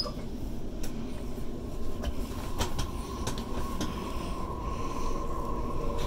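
Waratah A set electric train running, heard from inside the carriage: a steady low rumble from the wheels on the track with several sharp clicks over rail joints. A steady whine joins in about two seconds in.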